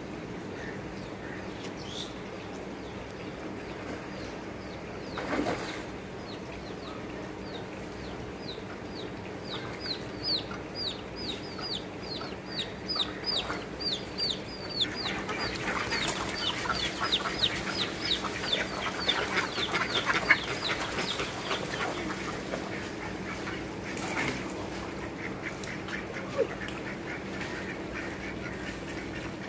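Farmyard ducks and chickens calling, with a long run of short, high, falling chirps repeated about two to three times a second through the middle and busier calling toward its end, over a steady low hum.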